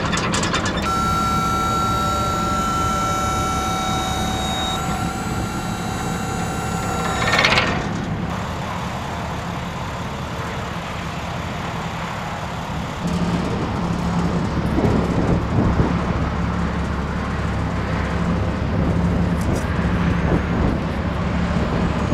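Box truck's engine idling, with a steady whine from the liftgate's hydraulic pump motor for the first seven seconds or so as the platform is worked, ending in a short rush. The low running hum grows louder about 13 seconds in.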